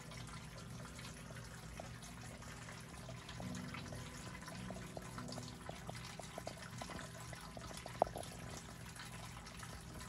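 Water trickling and dripping, with many small irregular drip ticks over a low steady hum, and one sharp click about eight seconds in.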